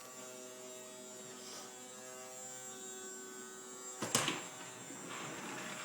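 Small vacuum cleaner's electric motor running with a steady buzzing hum as it is pushed along, with a sharp knock about four seconds in.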